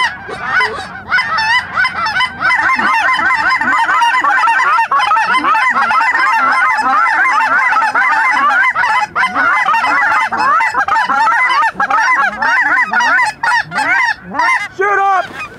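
A large flock of lesser Canada geese calling overhead: a dense, steady chorus of many overlapping honks and cackles.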